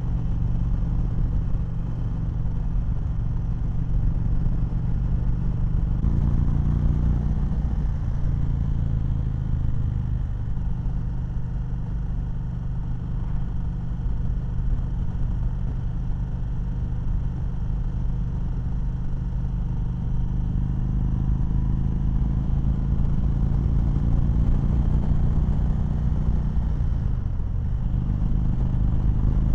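2019 Indian Chieftain Dark Horse's V-twin engine running steadily under way at road speed. Its note steps up about six seconds in and dips briefly near the end before picking up again.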